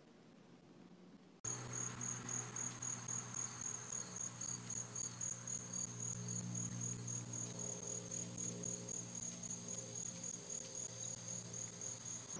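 Insect chirping outdoors: a high, even chirp repeated about three to four times a second, over a low steady hum. It starts abruptly about a second and a half in.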